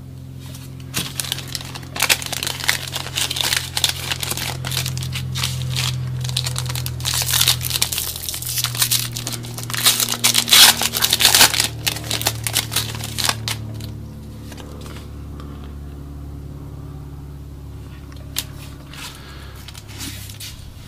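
A foil trading-card pack being torn open and its wrapper crinkled by hand, a dense crackling that is loudest about ten seconds in and dies down after about fourteen seconds.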